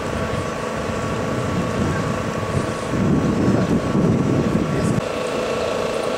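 Steady drone of an idling vehicle engine. A heavier low rumble of wind on the microphone swells from about three seconds in and cuts off suddenly about five seconds in.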